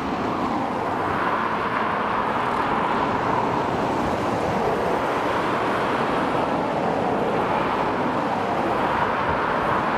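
Steady rushing noise of road traffic, cars driving along the road, with no clear single pass-by standing out.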